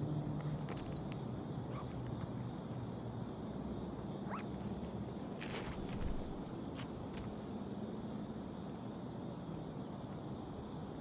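Steady outdoor background noise with a thin, high, continuous buzz, broken by a few faint clicks and a soft thump about six seconds in.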